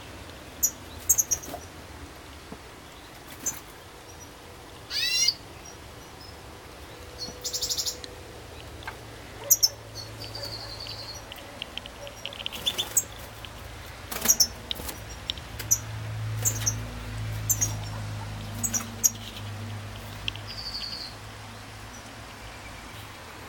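European goldfinches of the large Carduelis carduelis major form calling: scattered short high chirps and twitters, with one rising note about five seconds in and a short buzzy trill soon after. A low hum sits underneath for several seconds in the middle.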